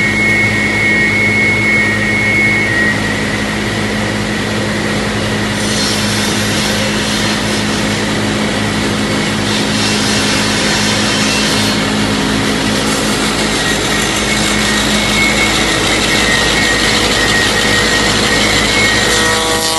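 A woodworking milling machine running with a steady hum and whine as its cutters mill profiled timber for window frames. The cutting hiss grows louder about six seconds in and again from about thirteen seconds.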